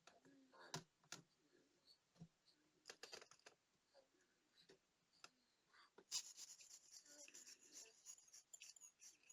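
Faint small clicks and taps of tools on the small metal and plastic parts of a digital wristwatch, then, about six seconds in, a steady run of quick, scratchy rubbing.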